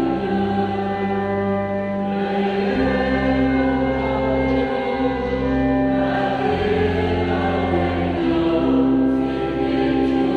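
Slow choral hymn music: a choir holding long sustained chords that change every second or two.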